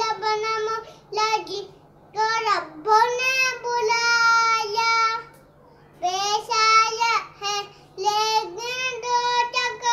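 A young boy singing a naat, an Islamic devotional song in praise of the Prophet, unaccompanied. He sings in phrases of held notes, with short pauses for breath about two seconds in and again near the middle.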